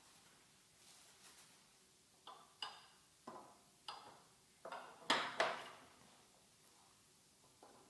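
A series of about seven sharp clicks and knocks over three seconds, some with a brief ringing edge, the loudest two close together near the end.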